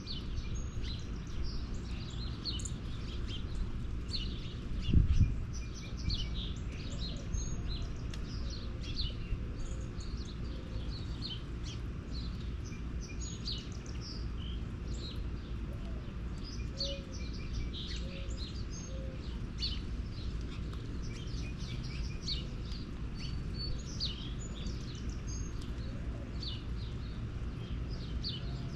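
Small birds chirping: many short, high chirps over and over, over a steady low rumble. A brief low thump about five seconds in.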